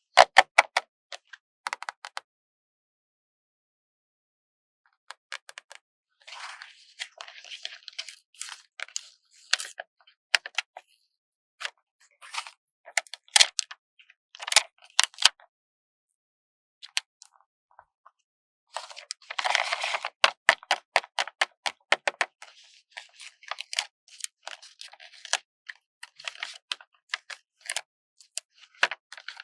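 Stickers being slowly peeled off their backing sheet: crackly peeling and papery rustling with scattered sharp clicks, coming in bursts with short pauses between them. The longest and loudest crinkle comes about two-thirds of the way in.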